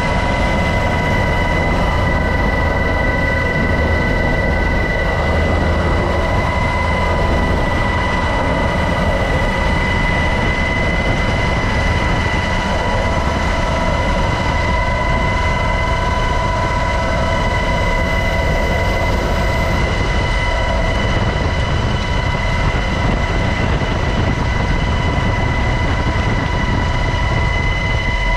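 UH-60 Black Hawk helicopter running steadily: a heavy low rumble from the rotor and twin turboshaft engines, with a constant high turbine whine over it.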